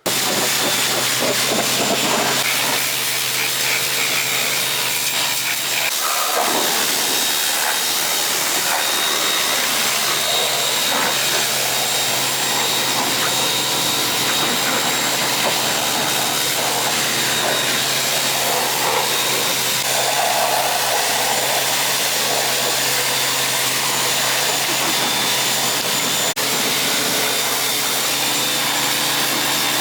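Pressure washer running steadily, its motor humming under a loud, even hiss of spray.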